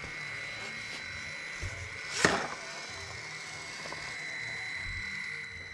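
Small RC crawler's electric motor and drivetrain whining steadily as it crawls over rocks, with a sharp knock a little over two seconds in as the truck strikes the rock.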